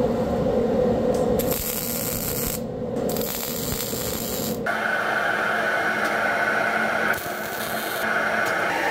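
MIG welder arc crackling and sizzling on steel rings, in a few bursts with short breaks between them. After about five seconds it gives way to a steadier noise with a low hum.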